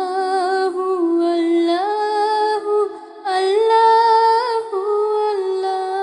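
Unaccompanied female voice singing a slow, wordless melody from a Bengali gojol, holding long notes and gliding between them, in two phrases with a short break about three seconds in.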